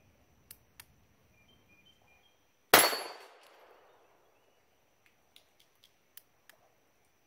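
A single shot from a French Unique .32 ACP (7.65 mm) pocket pistol about three seconds in, ringing out briefly. A few faint clicks come before and after it.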